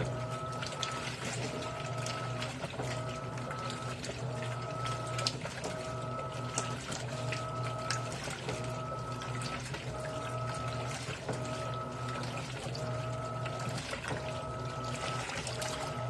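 Electrolux LAI17 17 kg top-load washing machine agitating a load of jeans and T-shirts in a low water level. The motor whine comes in even strokes of just under a second, about once a second, over a steady hum and the splashing and sloshing of water.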